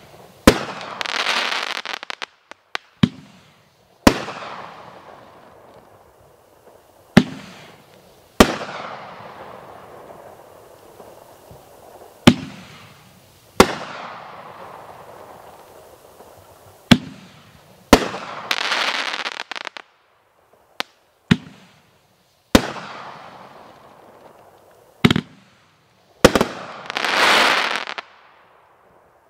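A 500-gram multi-shot firework cake firing shot after shot: sharp launch thumps and shell-break bangs one to four seconds apart, each echoing off for a few seconds. Three of the breaks are followed by a long, dense crackling as the crackling stars burn out, from the final crackling-chrysanthemum shots.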